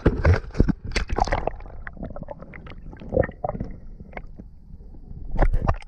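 An action camera is handled with a few sharp knocks, then goes under the sea surface, where the sound turns to muffled underwater bubbling and gurgling with scattered clicks. A louder rush of water comes about five and a half seconds in.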